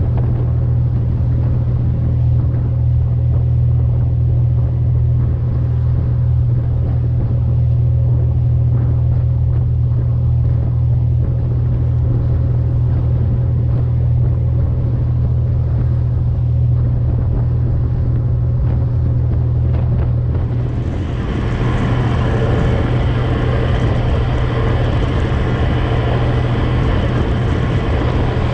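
Tug's Caterpillar marine diesel main engine running steadily under way, a deep, even drone. About two-thirds of the way through, the sound switches to a brighter, noisier mix of engine and water rushing past the hull.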